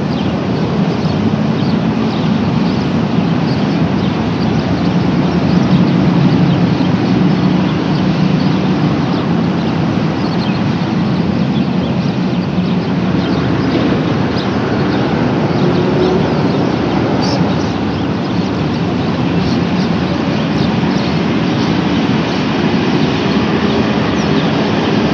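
Steady road traffic noise: a continuous, unbroken rumble of many vehicles.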